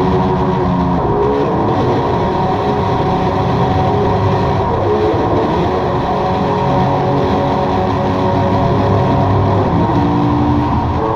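Experimental drone music: a dense, loud wall of held, distorted tones over a rumbling low end, the chord of sustained pitches shifting about a second in and again near the end.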